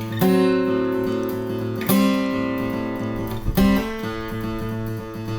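Background music: acoustic guitar strummed in sustained chords, a new chord struck about every two seconds.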